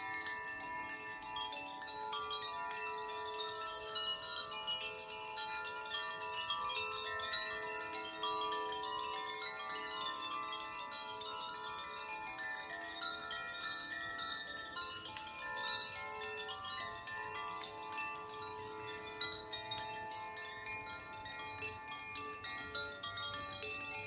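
Hand-played tuned wind chimes of the Koshi and Irohana kind, swayed so that the inner striker keeps hitting the tuned metal rods. Many overlapping ringing tones sustain and blend, over a constant high tinkling.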